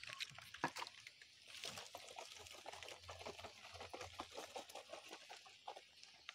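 Liquid fertilizer poured from a small hand scoop onto the soil of a potted curry leaf plant, splashing and pattering in many small drops from about a second and a half in.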